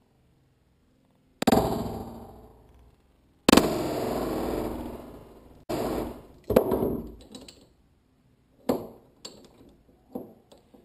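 Hammer blows on a hammer-driven (anvil-type) crimping tool, crimping a heavy-gauge copper connector onto welding cable: about seven ringing metal clangs at uneven intervals, the second the loudest and the last few lighter.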